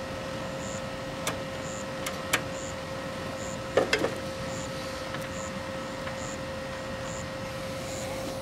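A few light clicks and taps of multimeter test leads and wires being handled, with a cluster about four seconds in, over a steady hum. A faint high chirp repeats about once a second.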